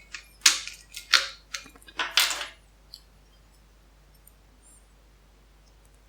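Old four-lever sheet-steel padlock being worked with its key: four sharp metallic clacks over about two seconds as the lever mechanism turns and the steel shackle snaps.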